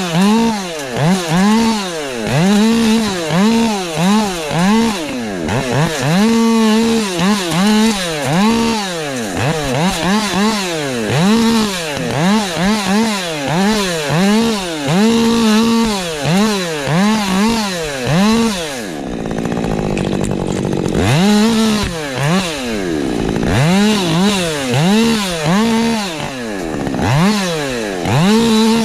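Husqvarna 550 XP Mark II, a 50 cc two-stroke chainsaw, revved up and back down over and over in short throttle bursts, about one a second, as in a run of short cuts. About two-thirds of the way through it runs lower for a couple of seconds before the bursts resume.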